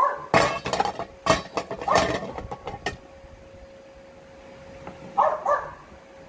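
Oyster knife prying at the hinge of a large oyster, with a quick run of sharp clicks and cracks of the blade and shell over the first three seconds.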